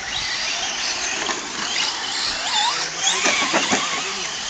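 Several radio-controlled short course trucks' motors whining on a dirt track, their pitch rising and falling quickly as they accelerate and brake, over a steady hiss.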